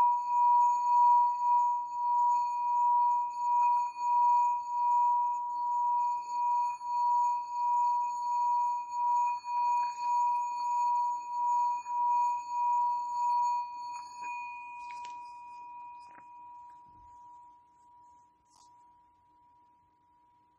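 A small Tibetan singing bowl rings on one steady tone with fainter overtones, wobbling in a slow beat a little more than once a second. It fades slowly and has almost died away by the end. A few faint clicks come through as it fades.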